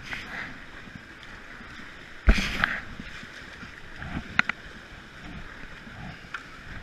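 Whitewater rushing past an inflatable raft as paddles stroke through the rapid, with one sharp thump and splash about two seconds in and a couple of lighter knocks a little later.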